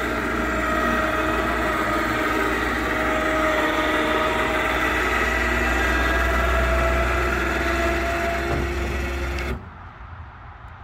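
Electric winch running under load as it hauls a small boat up into a pickup bed: a steady motor whine over a low hum. It stops suddenly near the end.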